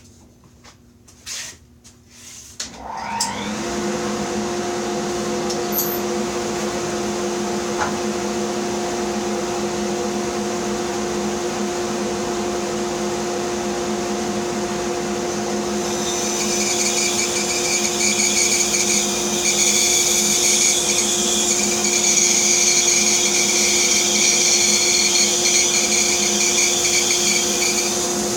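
A few clicks, then a bandsaw switched on about three seconds in: the motor comes up to speed and runs with a steady hum. From about halfway the blade cuts into wood, adding a higher, hissing whine on top of the hum and making it louder.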